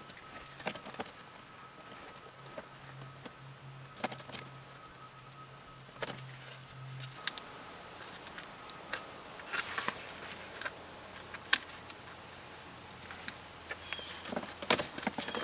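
Scattered small clicks and short rustles from hands working a zip tie and a shifter boot around the base of a car's gear shifter. A faint steady hum stops about halfway through.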